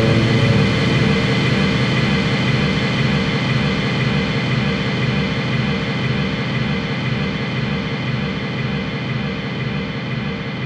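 A dense, sustained drone of noise with several held tones, slowly fading: the droning tail of a recorded instrumental track once the drums have stopped.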